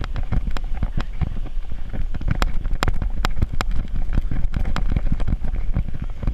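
Handling noise from a GoPro strapped to a corgi: rapid, irregular knocks and clicks as the camera jostles with the dog's movement, over a steady low rumble.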